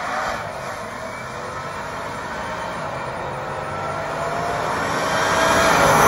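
Cadillac Escalade with a supercharged 6.2-litre V8 accelerating toward the microphone, its engine note slowly rising in pitch and getting louder as it approaches, with tyre noise underneath.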